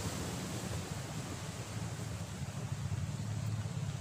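Wind buffeting the microphone, a steady low rumble, over an even hiss of breeze and small waves lapping at the shore.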